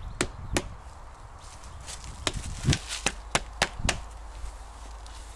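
About eight sharp knocks at irregular spacing: two in the first second, then a quicker run in the middle, the loudest about two and three-quarter seconds in.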